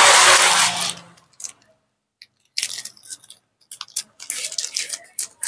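A person blowing a long, strong breath onto freshly glued copier exit-roller rubber to dry the glue, breaking off abruptly about a second in. This is followed by light clicks and rattles of parts being handled.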